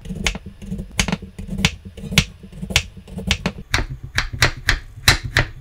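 Kitchen knife slicing a Korean radish thinly on a wooden cutting board: a run of sharp chops as the blade meets the board. The strokes get quicker in the second half, to about four a second.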